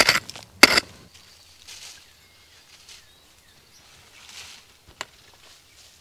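Two loud crunches in the first second. Then quiet woodland ambience with faint, brief bird chirps and a single sharp tick about five seconds in.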